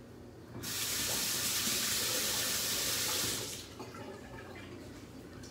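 Kitchen tap running for about three seconds while a kitchen knife is rinsed under it, starting about half a second in and then turned off.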